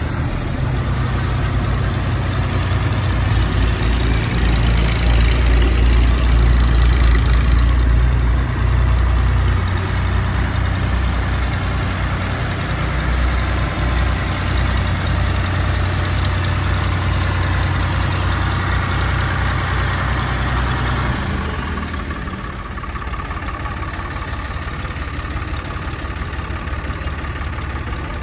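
Al-Ghazi tractor's diesel engine running, a steady low rumble that swells for a few seconds about four seconds in, then eases and drops off further near the end as the tractor pulls away.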